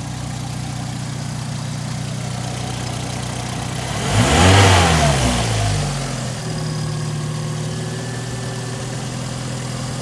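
Volkswagen engine idling steadily, with its exhaust leak freshly sealed. About four seconds in it is revved once: the pitch rises quickly, then falls back to idle within about two seconds.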